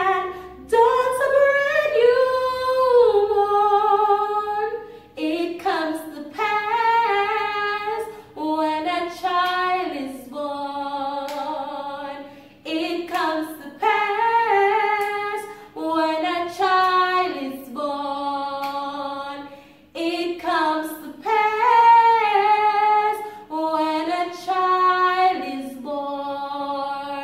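A woman singing solo without accompaniment, with long held notes and short pauses between phrases.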